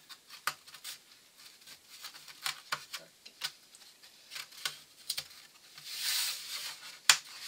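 Light, irregular taps and clicks of thin wooden model-aircraft parts being handled and pressed together as a fuselage side is dry-fitted onto its formers, with a short rubbing slide of wood on wood about six seconds in and a sharper click near the end.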